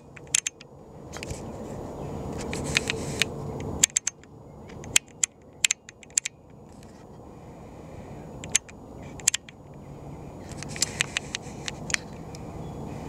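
Handling noise from a camera and telescope being adjusted: scattered sharp clicks and small clusters of taps over a low noise that swells and fades.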